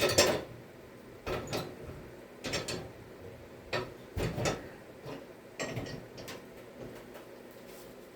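Short mechanical clicks and clunks, in small clusters of two or three about once a second, from metal parts being handled or worked.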